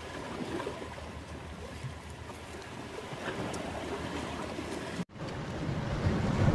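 Seaside ambience: a steady wash of waves and wind. It cuts out abruptly about five seconds in and comes back with louder wind rumble on the microphone.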